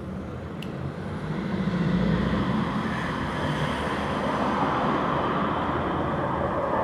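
Road traffic noise: a motor vehicle going by, a rumbling wash of sound that swells over the first two seconds and then holds steady.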